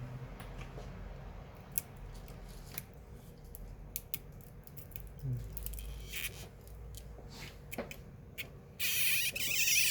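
Small scattered clicks and scrapes of hand tools working on an opened iPhone 6S as the second battery adhesive strip is worked loose. Near the end comes a louder noisy burst with a falling squeal.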